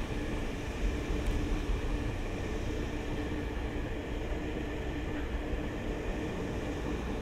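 A train running on rails: steady running noise with a constant hum.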